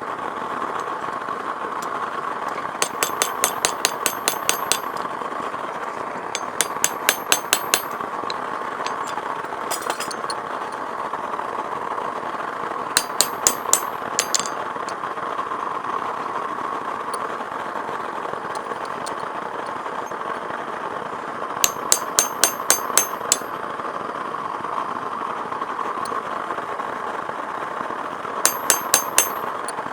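Blacksmith's hammer striking hot steel on an anvil in quick runs of about four to eight ringing blows, with pauses between the runs, over the steady roar of the forge.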